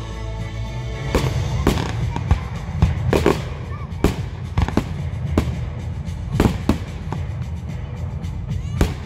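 Aerial firework shells bursting: about a dozen sharp bangs at irregular intervals, over a low rumble, with music playing.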